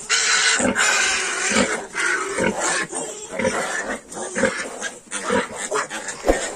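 Yorkshire sow grunting about once a second, the rhythmic nursing grunts a sow gives while her piglets suckle, with higher-pitched piglet squealing over roughly the first two seconds.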